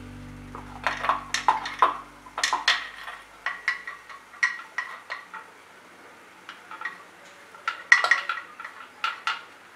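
Stainless steel idli stand plates clinking and clattering against each other and the centre rod as they are handled and stacked: a string of sharp metallic clicks with brief ringing, starting about a second in, thinning out in the middle, and clustering again near the end, where the loudest click falls.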